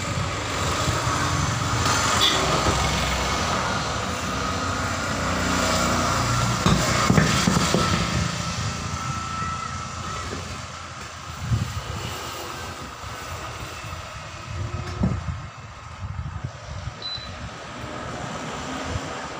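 Continuous rumble of road traffic that swells over the first several seconds and then eases. A few sharp knocks and thuds come from a truck tyre being handled and worked on by hand.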